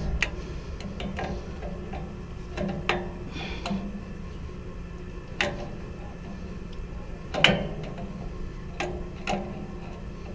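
Wrench working a new high-pressure relief valve tight on a chiller: a handful of irregular metal clicks and knocks, the loudest about two-thirds of the way through, over a steady low hum.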